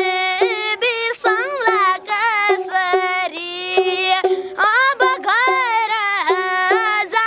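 A boy singing a song in Nepali in a high voice, with many quick turns of pitch and short breaks for breath between phrases.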